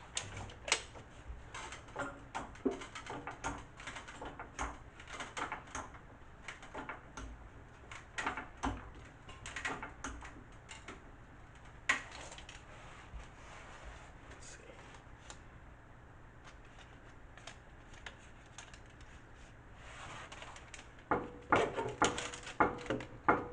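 Irregular metal clicks and clunks, one to a few a second, from hand-worked jacking gear lifting a car's sagging front frame. There is a quieter stretch in the middle, then a louder run of clicks with a faint steady tone near the end.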